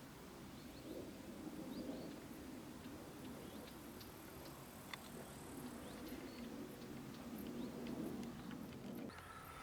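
Quiet countryside ambience: faint bird chirps over a low rumble, with one sharp click about five seconds in. A steady high tone starts just before the end.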